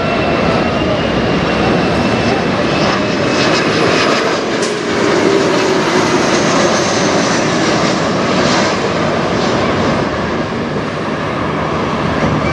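A CRJ-series regional jet's twin rear-mounted jet engines on landing approach, passing low overhead: a steady jet rumble and hiss with a faint whine that slowly falls in pitch as it goes by, loudest about halfway through.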